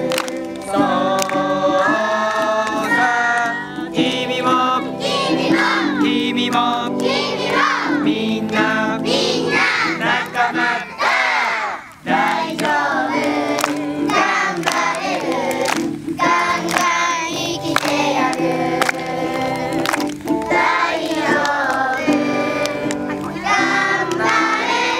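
A song with a group of voices singing, dipping briefly about halfway through and then carrying on.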